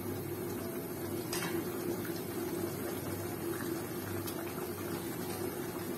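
Tomato curry gravy boiling in a frying pan, a steady bubbling, with a couple of faint ticks.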